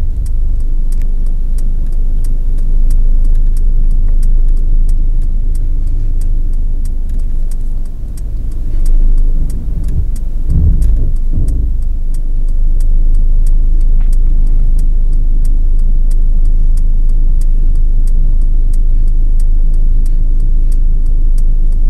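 Car cabin noise: the low, steady rumble of a car on the move, with an even, fast ticking all the way through and a few heavier low thumps about halfway.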